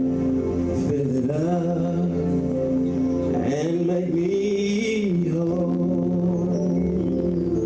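Slow gospel worship music: held keyboard chords, with a male voice singing drawn-out notes that slide in pitch.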